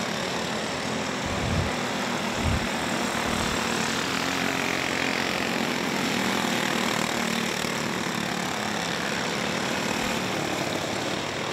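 A field of dirt-track cage karts racing, their small engines running at speed together in a steady blend, with a couple of brief low thumps within the first three seconds.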